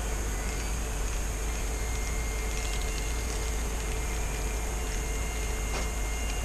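Steady low hum and hiss of background room noise, with a few faint light clicks in the middle and one more near the end.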